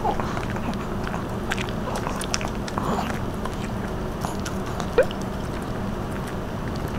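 Small dogs eating dog pizza: chewing and licking, with scattered small clicks of teeth and plates and one sharper click about five seconds in.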